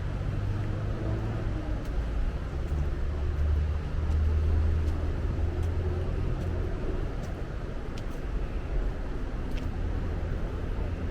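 Low, steady rumble of street traffic, swelling as a vehicle passes about four seconds in, with a few faint ticks over it.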